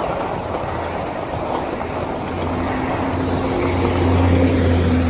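Wind buffeting the microphone over the rustle of bicycle tyres rolling on gravel. About halfway in, the steady low engine hum of a passing motor vehicle comes up and grows louder.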